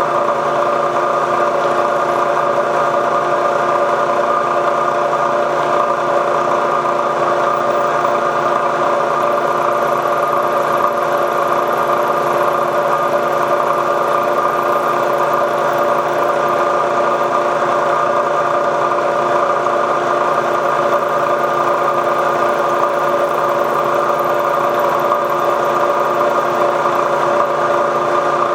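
Milling machine spindle running steadily with an 11/64 solid carbide end mill, taking a cut in a steel rifle bolt body, with a constant hum of several steady tones.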